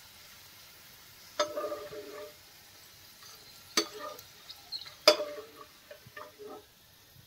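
Steel slotted spoon clinking against a frying pan three times, each strike ringing briefly, with a few lighter knocks in between, over faint sizzling of poha kurkure frying in oil.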